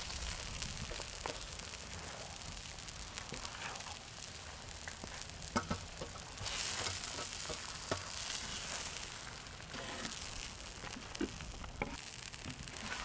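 Sausage, vegetables and noodles sizzling as they are stir-fried on a cast-iron cauldron-lid griddle, with a spatula scraping and knocking against the lid now and then.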